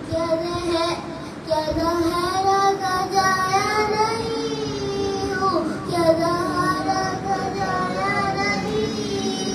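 A young boy's voice chanting a noha, an Urdu mourning lament, solo into a microphone in long, slowly bending melodic phrases.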